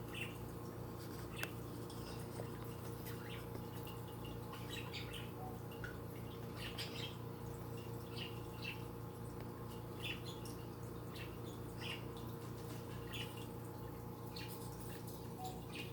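Small animals giving short, high chirps at irregular intervals, over a steady low hum.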